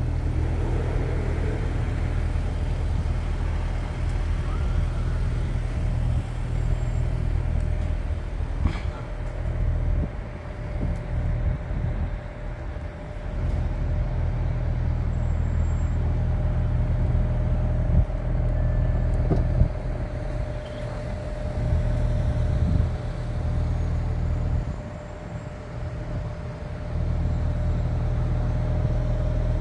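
Car engine idling steadily, a low even hum with a thin steady tone above it; the hum drops away briefly twice.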